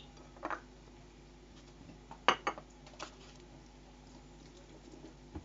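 A few short, light knocks and clinks of small hard objects, about five in all, the loudest two close together a little past two seconds in.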